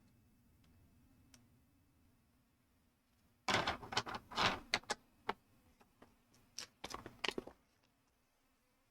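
Small plastic building bricks clicking and clattering as they are handled, in two short bursts about three and a half and about seven seconds in.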